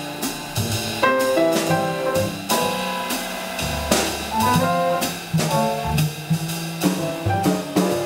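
Live jazz piano trio playing a swing standard: grand piano lines over upright double bass and a drum kit keeping time with regular cymbal and drum strokes.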